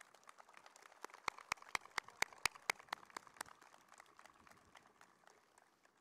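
Crowd applause, a patter of many hands, with one person clapping close to the microphone: about a second in, a run of sharp, loud claps at about four a second for some two and a half seconds. The applause thins and dies away near the end.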